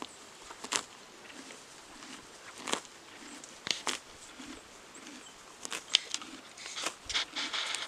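A horse grazing close by, tearing grass with crisp snaps at uneven intervals and chewing quietly in between.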